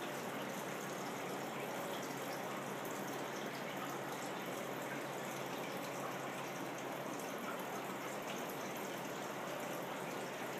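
Steady rushing noise, unchanging in level, with a faint low hum underneath.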